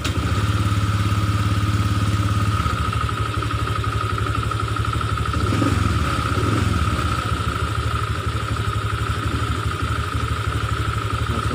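Honda Vario 125 scooter's liquid-cooled single-cylinder engine running with a loud snoring ('ngorok') noise and a steady high whine over a low rumble. The owner traces the noise to the radiator fan blades scraping against the wall of the fan cover.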